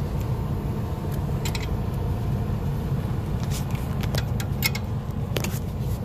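Irregular metallic clinks and ticks of a hand tool and socket extension working the bolts of a truck air-spring mount, most of them in the second half, over a steady low engine rumble.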